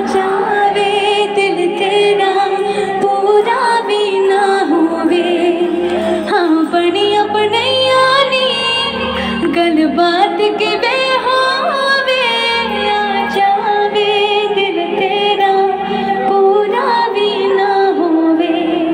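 Live band music through a concert sound system: a woman sings drawn-out, sliding melodic runs over a bass line that changes note every second or two.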